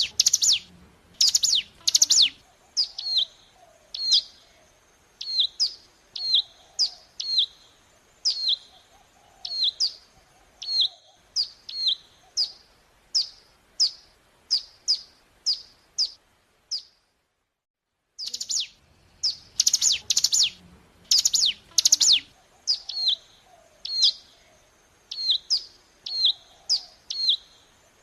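Ciblek gunung (a prinia) singing: a long run of sharp, high, down-slurred chirps, about one to two a second. The chirps break off for about a second and a half past the middle and then start again.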